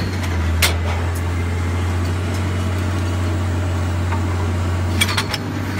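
Snubbing unit's engine-driven power unit running steadily with a low drone, and a few sharp clicks: one about half a second in and a quick cluster about five seconds in.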